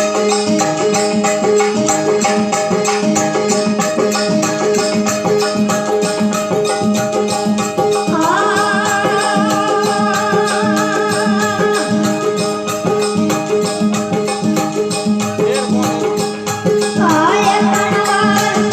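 Instrumental introduction of a Rajasthani devotional bhajan: fast, even hand percussion with jingles over steady held drone notes, with a wavering melodic line coming in about eight seconds in.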